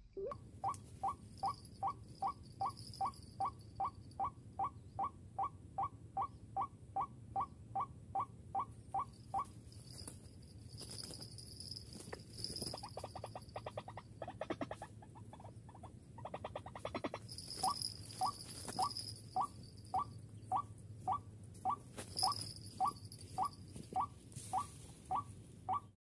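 White-breasted waterhen (ruak-ruak) calling: a steady run of short rising notes, about three a second, for some nine seconds. A quicker chattering series follows, then the rising notes again, more slowly.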